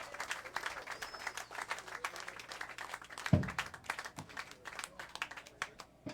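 A small club audience clapping after a song, the claps thinning out and stopping near the end. A single low thump stands out about a third of the way through.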